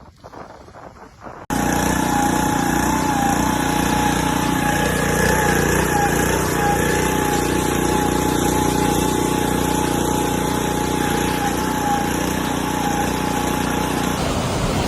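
An engine running steadily. It starts abruptly about a second and a half in, with a wavering whine above its hum, and changes to a different noise near the end.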